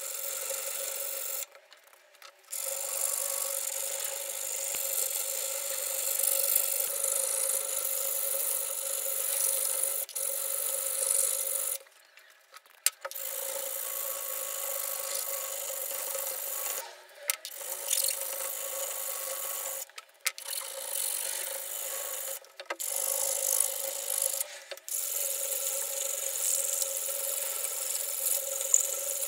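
Hand file scraping back and forth across the sandblasted metal body of an antique grater clamped in a vise, in continuous runs of strokes that stop briefly about six times.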